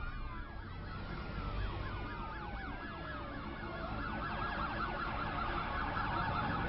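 Several police car sirens sounding at once, overlapping fast yelps and slow wails, with long tones falling in pitch, over a low traffic rumble.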